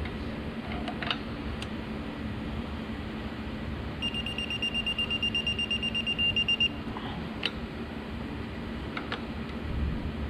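High-pitched electronic beeping, several quick beeps a second for about two and a half seconds midway, over a steady low hum, with a few sharp clicks of tools before and after.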